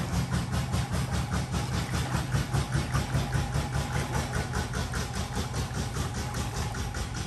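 A small engine running steadily at a slow idle, with an even chugging beat of about six pulses a second.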